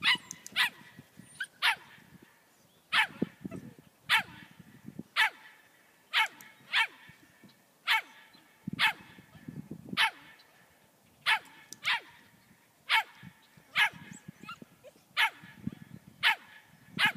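A dog barking over and over in short, sharp, high barks, about one a second and sometimes two in quick succession.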